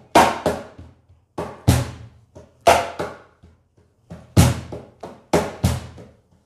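Wooden cajón struck with bare hands in a repeating eighth-note practice pattern. Soft strokes alternate with loud, sharp slaps, played at a slightly quickened tempo.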